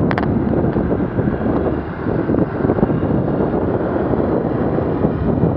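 Wind buffeting the microphone of a camera on a moving bicycle, a steady rumble mixed with city traffic noise. A single sharp click comes just after the start.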